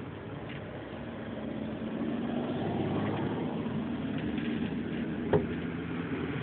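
RC truck's motor and gears running as it drives, growing louder about two seconds in, with a single sharp click a little after five seconds.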